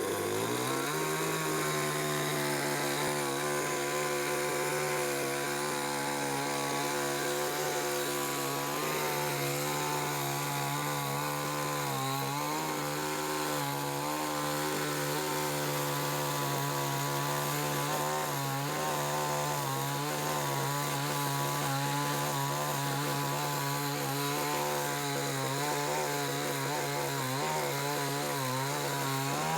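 Chainsaw running at high revs and cutting into a dead tree. It comes up to speed in the first second, then holds a steady pitch with small dips.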